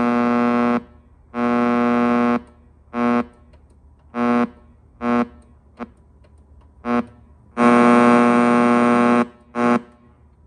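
Panasonic RX-D10 boombox's AM radio putting out a harsh, steady-pitched buzz in on-off spurts as the tuning is stepped up the band, going quiet between frequencies. The longest spurt, about a second and a half, comes near the end.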